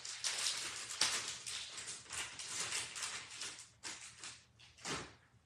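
Irregular rustling and scuffing: a string of short, hissy swishes with sharper ones about a second in and near the end, dying away at the close.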